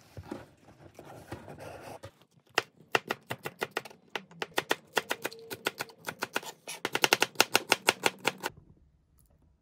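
A soft rustle for the first two seconds, then a kitchen knife chopping rapidly on a plastic cutting board, about five or six strokes a second, slicing chili peppers and then onion. The chopping stops about a second before the end.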